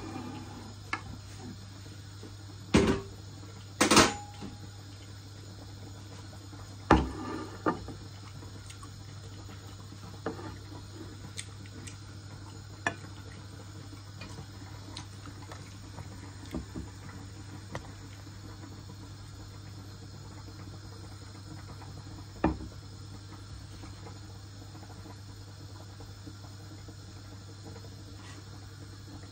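Sharp, occasional clinks and knocks of a ceramic dinner plate and cutlery against a granite countertop, several in the first eight seconds and one more around twenty-two seconds, over a steady low hum.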